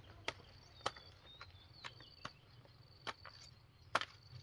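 A knife chopping at a banana plant: a handful of sharp, irregular chops, the loudest about four seconds in. Insects chirr steadily underneath.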